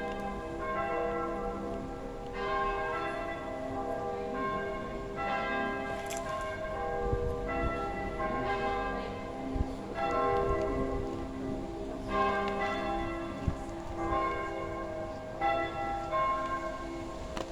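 A ring of church bells of different pitches struck one after another in a sequence that repeats about every two and a half seconds, their tones overlapping as they ring on. A few brief low thumps sound among them.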